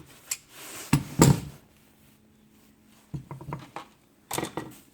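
A few knocks and clicks of a hand saw and its handle being handled, with one longer scraping burst about a second in.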